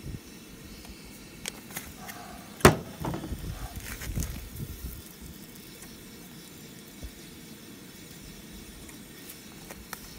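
A small seasoning shaker is set down on a plastic truck-bed liner with a sharp knock about two and a half seconds in, after a few light clicks and followed by a couple of seconds of rustling handling noise. A steady hiss lies underneath.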